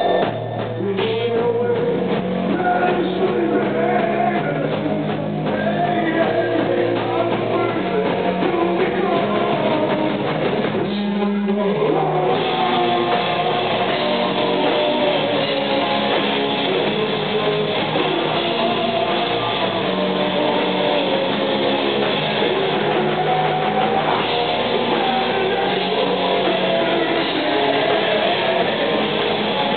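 Live rock band playing electric guitars and drum kit, loud and continuous; the band comes in fuller and denser about twelve seconds in.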